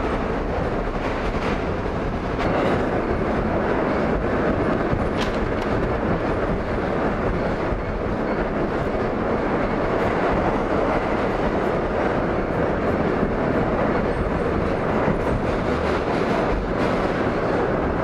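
New York City subway train running, heard from inside the car: a steady noise of the wheels on the track, with a few faint clicks.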